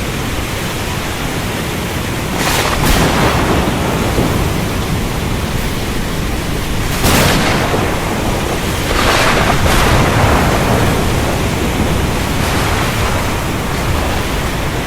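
Steady heavy rain of a thunderstorm, with sudden cracks of thunder rumbling out: a pair about two and a half seconds in, another at about seven seconds, and two more around nine to ten seconds.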